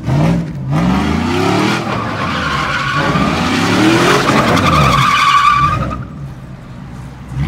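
Chevrolet Silverado pickup doing donuts: the engine revs up in rising sweeps while the rear tyres squeal and skid on the asphalt. The squeal dies away about six seconds in.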